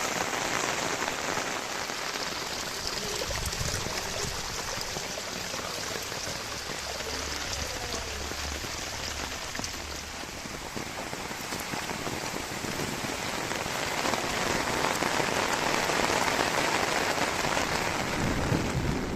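Heavy rain falling steadily, a dense even hiss of drops. It eases slightly midway and picks up again over the last few seconds.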